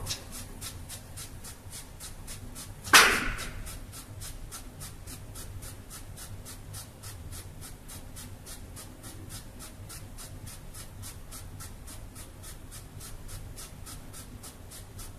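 Scrub brush scratching over fingernail tips in rapid, evenly spaced strokes, roughly four a second, as in a surgical hand scrub. One louder sudden sound comes about three seconds in.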